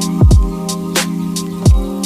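Background music: a laid-back hip hop beat with deep kick drums that drop in pitch and crisp percussion hits over a held chord.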